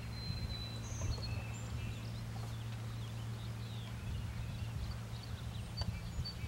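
Dawn shoreline ambience: birds give scattered short chirps and whistles over a steady low hum.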